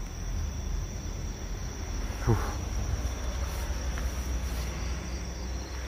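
Crickets trilling steadily, one unbroken high tone, over a low rumble. A brief falling sound comes about two seconds in.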